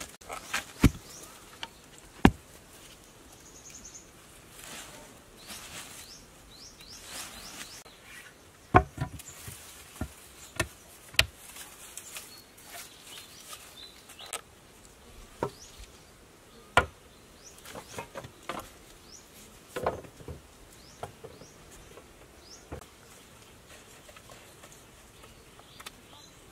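Irregular sharp knocks and taps of wooden and bamboo poles being handled and set in place by hand, about a dozen spread unevenly, over faint high chirping.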